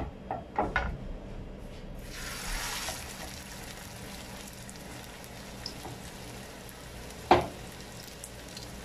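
Raw ground-beef patty sizzling in hot oil in a nonstick frying pan. A few knocks come as it goes in, then the sizzle swells about two seconds in and settles to a steady hiss, with a single sharp knock near the end.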